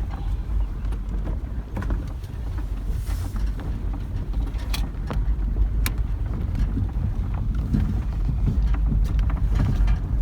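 A vehicle on the move, heard from inside: a steady low rumble with scattered small rattles and clicks.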